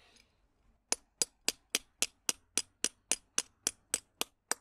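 Hammer striking the head of a 12 mm sleeve anchor bolt about fourteen times in quick, even blows, roughly four a second, starting about a second in. The bolt is being driven all the way into its drilled hole in the rock.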